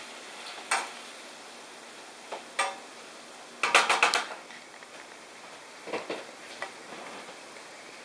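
Wooden spatula knocking and scraping against a frying pan while stirring a stir-fry of Spam and snow peas. It gives scattered single knocks, with the loudest a quick run of about five clacks a little past the middle.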